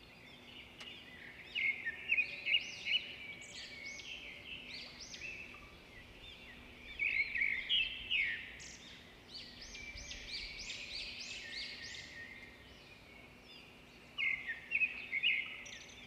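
Caged pet birds chirping and chattering: many quick, high chirps and whistles, in louder flurries about two seconds in, around seven to eight seconds, and near the end, over a faint steady hum.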